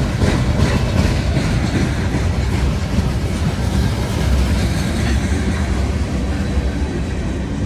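Freight cars of a long coal train rolling past, steel wheels clicking over rail joints in a quick run of clicks in the first second or so, then a steady heavy rumble.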